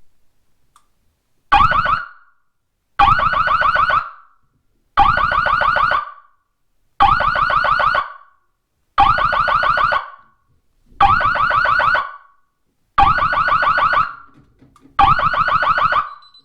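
Fire alarm system's siren sounding a pulsed alarm, triggered by turning the thermostat down. A fast-warbling tone about a second long repeats every two seconds, eight times, the first one shorter.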